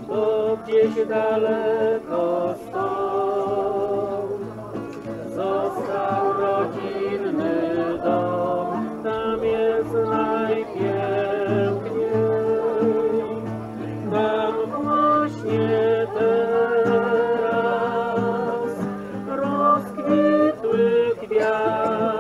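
Singing with instrumental accompaniment: a melody over steady low held notes.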